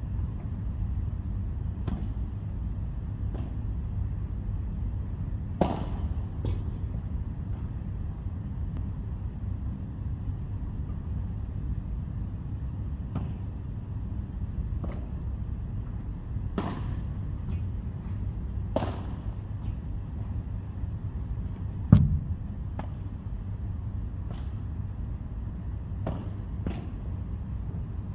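Padel rally: sharp pops of the ball struck by rackets and bouncing off the court and glass walls, coming irregularly every second or two. One much louder hit with a low thud comes about 22 seconds in. Underneath runs a steady low rumble and a constant thin high-pitched whine.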